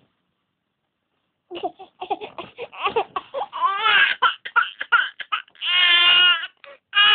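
Infant vocalising, starting about a second and a half in: a run of quick, broken bursts, then two long crying wails, the baby fussing into tears.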